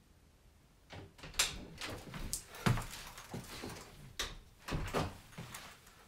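A room door being handled: a run of latch clicks and knocks with low thumps, the sharpest about one and a half seconds in and another cluster near the end.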